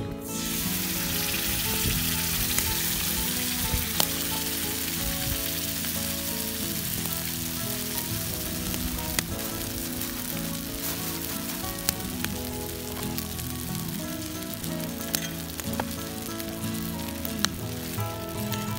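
Food sizzling steadily in a hot pan over a campfire, with a few sharp crackles. Soft background music plays underneath.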